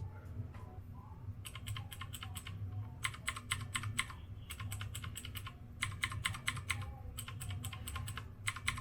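Typing on a Redragon Kumara K552 mechanical keyboard with clicky blue switches: quick runs of sharp key clicks with short pauses between them, over a steady low hum. Picked up by a camera's built-in microphone.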